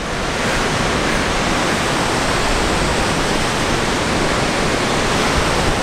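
Waterfall of the Sainte-Anne Canyon rushing far below: a steady, even wash of falling water with no let-up.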